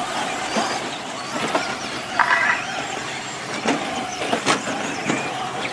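Radio-controlled Traxxas Slash short-course trucks racing on dirt, their electric motors whining in a wavering pitch. Several sharp clacks come as trucks land jumps or hit the track edging, and there is a short beep a couple of seconds in.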